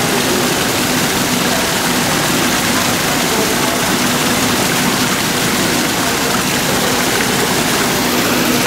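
Steady, even rushing noise with no breaks or strokes.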